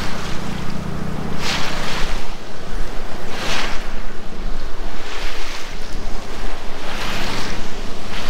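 Wind rumbling on the microphone over small choppy waves lapping, with a hissing swell of water every couple of seconds.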